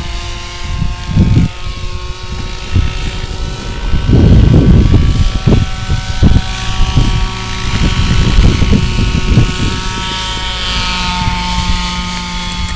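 Large radio-controlled helicopter flying low, its engine and rotor giving a steady whine. Irregular low rumbles of wind buffet the microphone, strongest about four seconds in.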